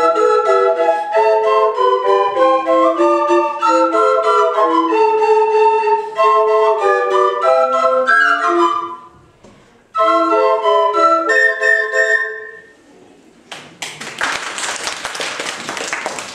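An ensemble of sopilkas, Ukrainian wooden end-blown flutes, plays a quick melody in several parts. After a short break about nine seconds in, they play a closing phrase that ends on a held chord. Applause starts about three seconds before the end.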